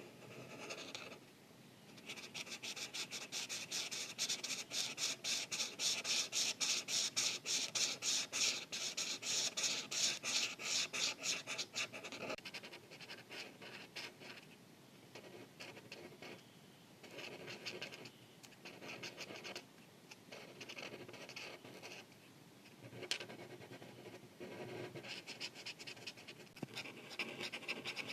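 Felt-tip art marker scratching over paper in rapid back-and-forth coloring strokes, loudest and densest for the first ten seconds or so, then lighter and more broken up with short pauses. A single sharp tick about two-thirds of the way through.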